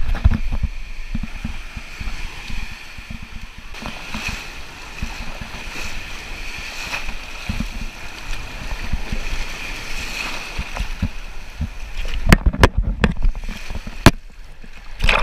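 Breaking surf and water sloshing around a plastic sit-on-top kayak in the shore waves, with wind buffeting the microphone. A few sharp knocks or splashes come near the end.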